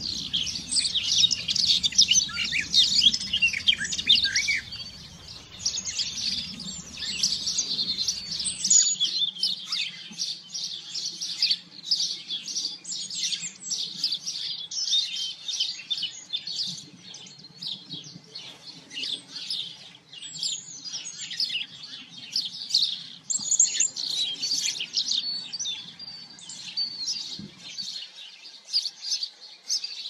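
Songbirds singing, many short chirps and trills overlapping into a continuous chorus.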